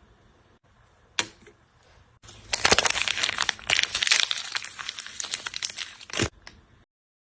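Plastic wrapping being torn open and crinkled by hand, in a dense spell of crackling from about two and a half seconds in, with a single sharp click about a second in and a knock near the end. The sound then cuts off suddenly.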